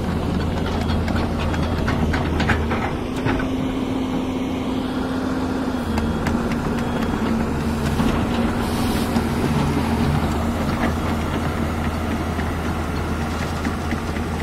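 Hyundai 210 crawler excavator's diesel engine running steadily at close range. A higher steady tone rides over it for a few seconds, and there are a few sharp clanks about two to three seconds in.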